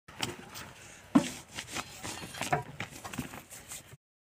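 A few scattered light knocks and scrapes, the loudest about a second in, with more around the middle.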